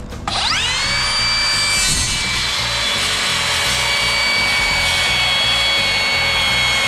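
Makita 40 V XGT cordless circular saw with a 7-1/4-inch, 24-tooth blade. It spins up with a quick rising whine about a third of a second in, then runs at a steady high whine while it cuts across a cedar board.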